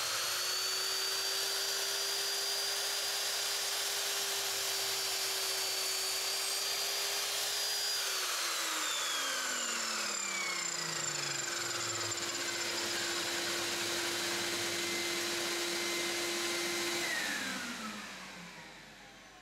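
Resanta TP-255PL sliding miter saw motor running with a steady whine, a tone within it dropping in pitch about eight seconds in. Near the end the saw is switched off and winds down, the whine sliding lower and fading out.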